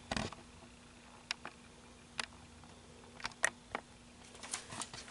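Faint scattered clicks and light taps, about eight in all, over a quiet steady hum: hands gripping and shifting a held-up hardcover book.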